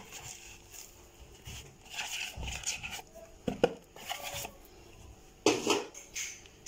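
A hand mixing dry wheat flour and ground sesame for sellou in a plastic bowl: soft irregular rubbing and scraping of powder against the bowl, with a few brief louder bumps, the loudest about five and a half seconds in.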